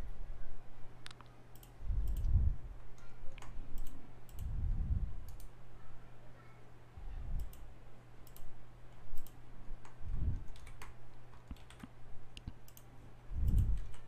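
Computer mouse buttons clicking: scattered single and paired clicks at irregular intervals, over a faint steady electrical hum, with a few soft low thumps.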